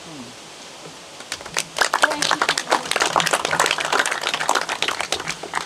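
A small gathering applauding. The clapping starts about a second in, builds quickly into dense applause, and thins out near the end.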